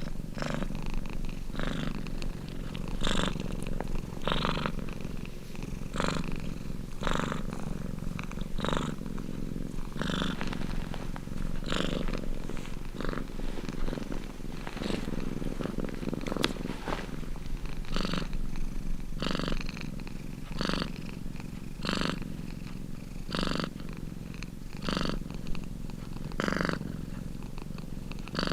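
Domestic cat purring steadily, a low rumble that swells with each breath about every second and a half.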